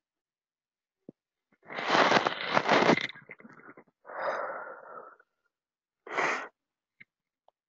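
A person's loud breathy noises close to the microphone: a long burst about two seconds in, then two shorter ones.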